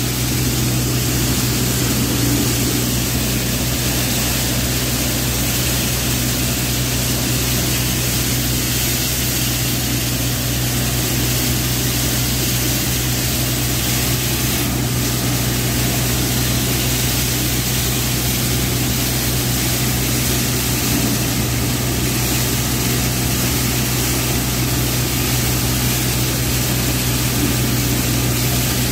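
Multi-crop thresher driven by a 35 hp tractor, running steadily while threshing: a constant low hum under a loud, even rushing noise, with cleaned grain pouring from its outlet chute.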